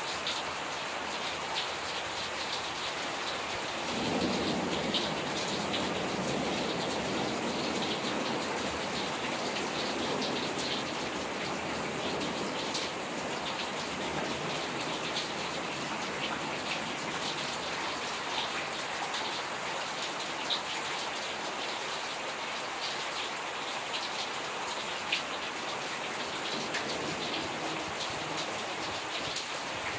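Steady rain from a summer thunderstorm, with nearby drops ticking on a surface. About four seconds in, a low rumble of thunder swells and then fades away over several seconds.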